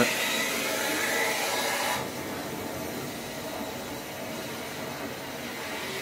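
Fresh water rushing through the opened fill valve of a low-pressure steam boiler, a steady hiss as the boiler is topped up after a blow-down. The hiss eases a little about two seconds in.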